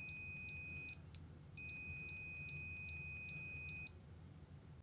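Continuity beeper of an AstroAI AM33D multimeter sounding a steady high tone, first for about a second, then again for about two seconds. Very quiet: 53.6 dBA on a sound meter.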